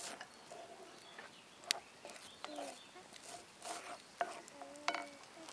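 Domestic fowl clucking in short, scattered calls, with a few sharp clicks among them.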